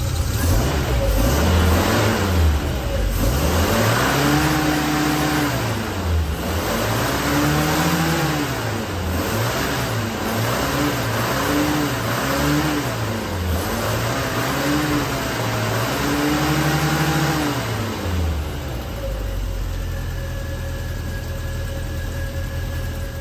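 Triumph Spitfire Mk3's four-cylinder engine running, revved up and down again and again, then settling to a steady idle for the last few seconds. It is being run to draw the fuel out of the fuel filter and leave it dry.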